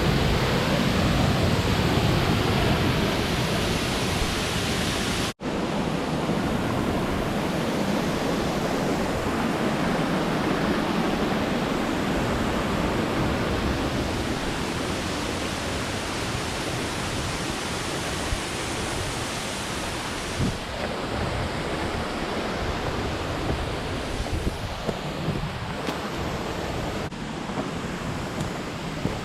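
Steady rushing of falling water from a waterfall in a mountain stream. It cuts out for an instant about five seconds in, and is a little duller in the second half.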